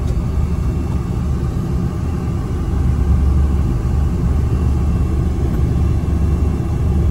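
Low, steady rumble of a car moving slowly through congested traffic, heard from inside the car; it grows a little louder about three seconds in.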